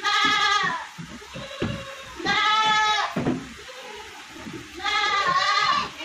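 Young goats bleating in a pen: three loud bleats, each about a second long, about two seconds apart, the middle one wavering.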